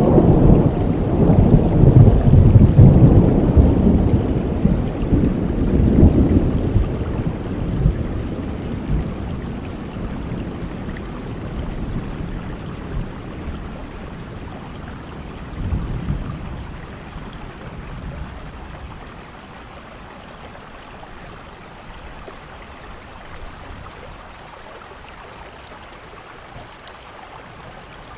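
Thunder rumbling loudly for the first several seconds, with a smaller roll about halfway, then fading into steady rain.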